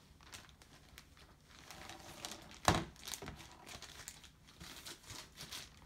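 Packaging rustling and crinkling as it is handled, with scattered light clicks and one sharper knock a little under three seconds in.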